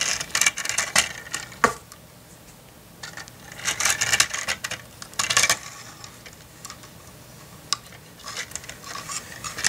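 Plastic Lego pieces clicking and rattling in short bouts of small taps as a toy car is rolled over a plastic grille ramp and the set's pieces are handled.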